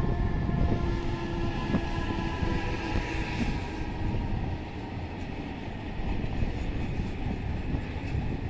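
Container freight train passing, with the steady rumble of loaded container wagons rolling by on the rails. A humming tone from the locomotive fades out in the first two to three seconds.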